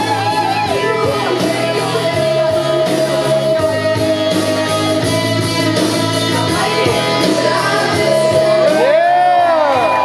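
Loud music with singing, and shouts over it. There is a burst of sweeping, whooping voices near the end.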